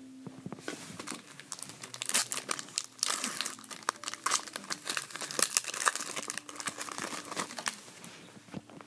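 Foil wrapper of a hockey card pack crinkling and tearing as it is opened, with the cards rustling as they are handled; the crackling is densest from about two seconds in until near the end.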